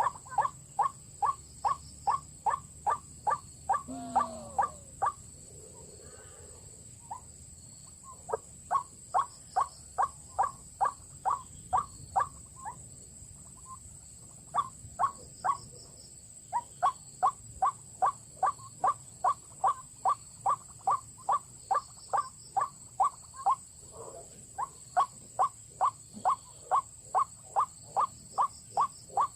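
White-breasted waterhen (ruak-ruak) calling: long runs of sharp, evenly repeated notes, about three a second, stopping briefly a few times and starting again.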